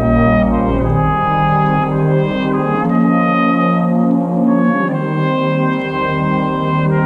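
Drum and bugle corps brass hornline playing slow, sustained chords. The low bass drops out about a second in and comes back near the end.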